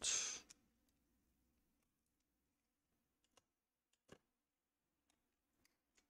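A brief breathy exhale at the start, then near silence broken by a few faint small clicks of laptop internals being handled: cable connectors and a tool against the motherboard, the clearest about four seconds in.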